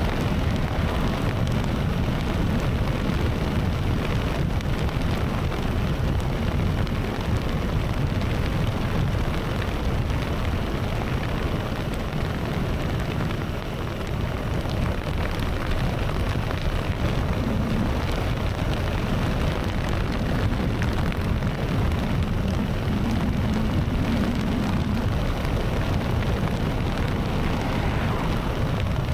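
Wind buffeting the microphone of a cyclist riding fast downhill: a steady, heavy low rush with no pauses.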